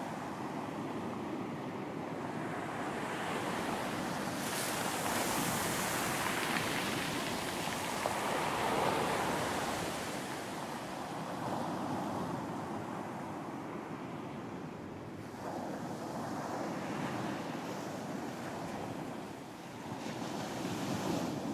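Sea waves breaking and washing on a beach, a continuous rush that swells and eases, with a bright surge of surf about four seconds in and another about fifteen seconds in.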